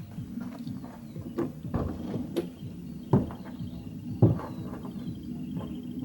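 2.8-litre VR6 engine of a Mk2 Golf idling with a low, uneven rumble and a few sharp knocks. New spark plugs and HT leads have just been fitted to cure a misfire, and the engine still does not sound right.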